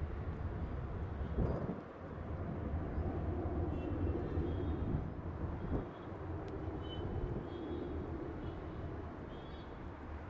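Embraer KC-390's twin turbofan engines rumbling from the departing aircraft at a distance, easing slightly toward the end.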